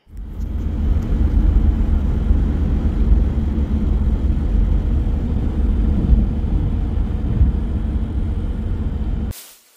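Car travelling at highway speed, heard from inside the cabin: a loud, steady low road and wind rumble. It cuts off sharply near the end.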